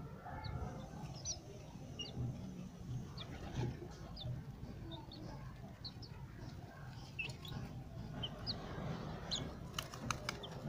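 White Leghorn chicks peeping: short, high-pitched peeps scattered throughout, over a low background rumble. A quick run of clicks comes near the end.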